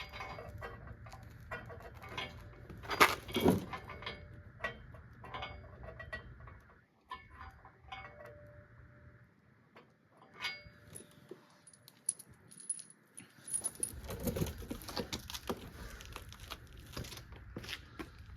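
Small metal parts clinking and rattling as bolts and tools are handled, in irregular bursts with a louder cluster about three seconds in and a quieter stretch in the middle.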